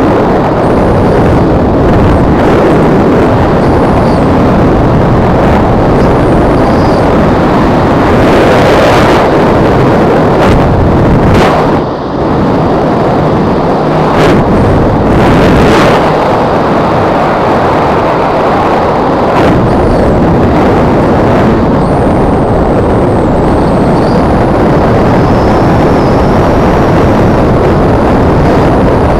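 Loud, steady wind rushing over a skydiver's helmet-camera microphone, with a brief lull about twelve seconds in.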